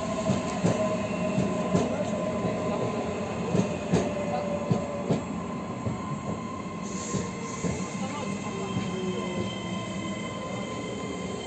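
An EG2Tv Ivolga electric suburban train rolls past close by. Its motors give a steady whine, one tone of which sinks slowly in pitch, and the wheels knock over rail joints, mostly in the first half.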